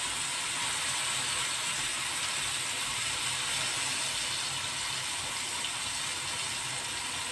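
Ground chili, shallot and garlic sambal sizzling steadily as it is sautéed in hot oil in a frying pan.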